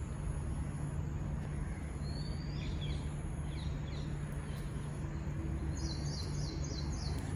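Small birds chirping outdoors, with a quick run of repeated high notes near the end, over a steady low rumble of background noise.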